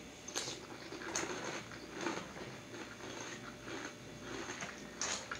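Close-up chewing of a mouthful of crunchy Magic Spoon cereal in milk: irregular small crackling crunches, a few sharper ones standing out.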